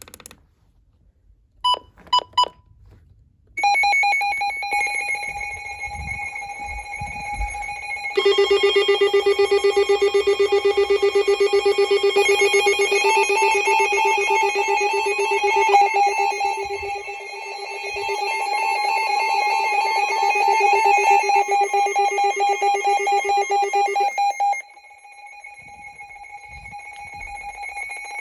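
Two radios sounding their siren alarms in a test. After a few short beeps, the first radio's rapidly pulsing high tones start about 4 s in. A second, lower pulsing alarm joins about 8 s in and cuts off about 24 s in, while the first keeps going.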